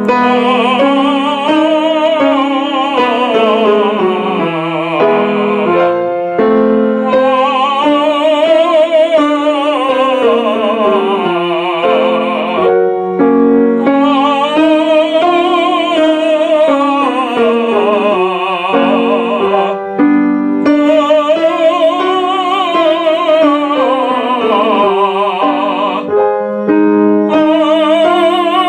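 Operatic tenor vocalising through the passaggio, the break between chest and head register: about five long sung phrases, each rising and falling in pitch with vibrato, separated by short breaths.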